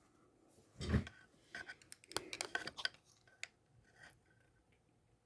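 Small handling clicks of a precision screwdriver and a tiny screw against a metal eyeglass frame as the nose-pad screw is lined up to go back in: a soft thump about a second in, then a quick run of light clicks and taps over the next two seconds.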